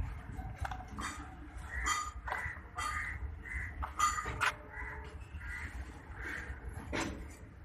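Birds calling over and over, about two short calls a second, with a few sharp clicks and a low background rumble.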